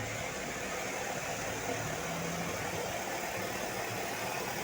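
Steady road-traffic noise: vehicle engines running and tyre noise at an even level, with no horn sounding.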